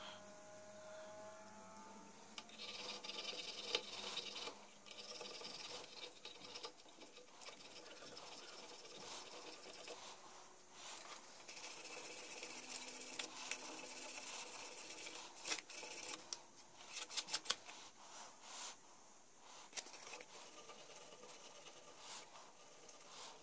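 Bone needle being scraped and sharpened by hand: faint rasping strokes of a small blade shaving the bone, and of the needle point rubbed on an abrasive sheet, coming in short stretches. A few sharp clicks come together about two-thirds of the way in.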